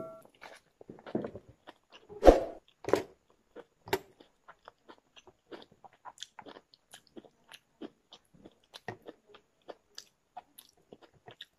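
A person chewing food close to the microphone, eating by hand: two louder bites a couple of seconds in, then a long run of soft, quick chewing clicks.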